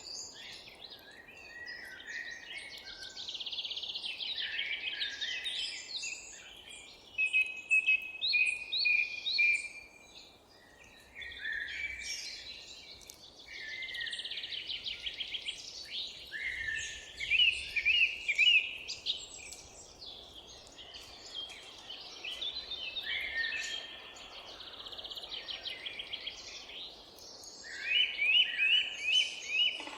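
Several songbirds singing at once, overlapping chirps and trills, with loud bursts of quickly repeated notes about a quarter of the way in, in the middle and near the end, over a faint steady background hum.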